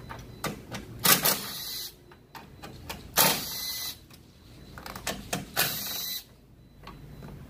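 A ratchet working fasteners loose in three short rasping bursts about two seconds apart, each starting sharply, with small clicks and knocks between.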